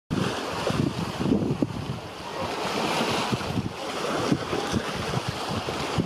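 Wind buffeting the microphone in irregular low rumbles, over the steady hiss of sea waves.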